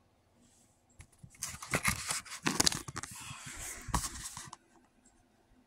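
Handling noise from the recording device being picked up and moved: rustling, scraping and knocks close on its microphone, starting about a second in and stopping at about four and a half seconds.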